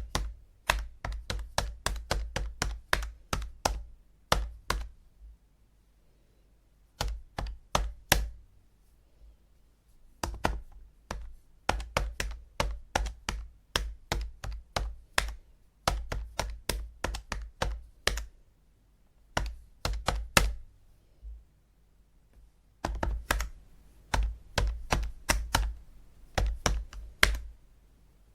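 Calculator buttons being pressed, sharp separate clicks in irregular runs of two to four a second with short pauses between runs.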